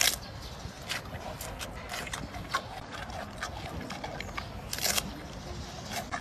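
Giant panda biting and chewing a bamboo shoot: irregular crunches and snaps, the sharpest at the start and about five seconds in.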